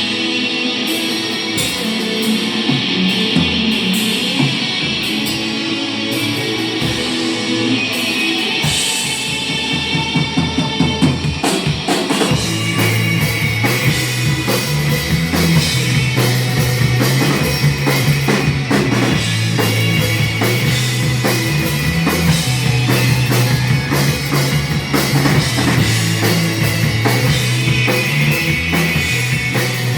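Rock music: guitar at first, then a drum kit and bass come in with a steady beat about ten seconds in.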